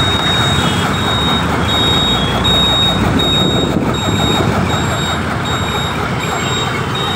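A high electronic beep repeating about one and a half times a second, in the manner of a vehicle's reversing or indicator beeper, over steady road-traffic and wind noise.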